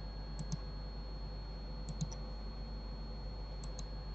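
Faint computer mouse clicks, in quick groups of two or three about every one and a half seconds, over a steady electrical hum.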